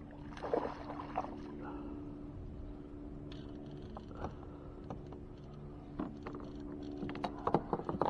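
Small fishing boat on the water: a steady low motor hum runs throughout, with irregular knocks and water splashes against the hull, a cluster about half a second in and another near the end.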